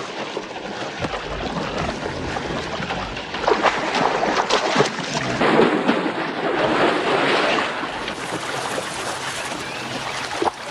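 Water splashing and churning hard as a tiger lunges and thrashes through it, with many sudden splashes over a steady rush of water.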